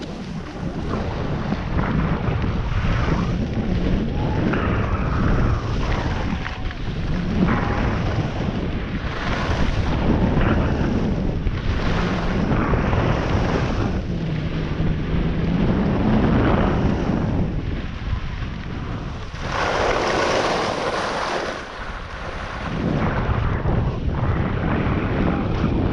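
Wind buffeting the microphone during a fast run down a groomed ski slope, with the hiss and scrape of edges on the snow swelling and easing with each turn. A louder scraping hiss lasts about two seconds a little past the two-thirds point.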